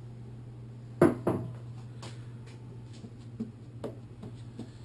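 Handling sounds: two sharp knocks about a second in, then a few light clicks and taps, over a steady low hum.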